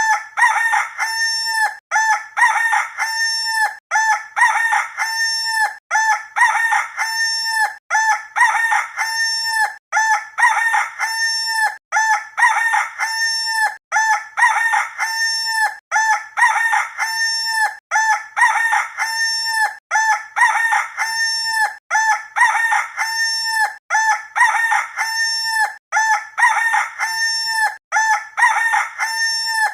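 Rooster crowing, the same cock-a-doodle-doo repeated back to back about every two seconds as a looped sound effect.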